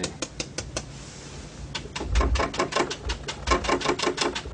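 A 2-inch paint brush tapped rapidly straight down, several light taps a second. After a short pause about a second in, the taps grow louder with a low thud as the brush stipples paint onto the stretched canvas.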